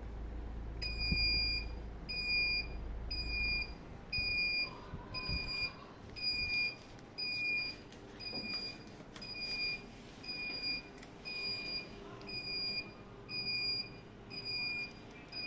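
Electronic beeper of a QYQ-01 spinal traction bed's control unit, giving a single high beep about once a second, over and over.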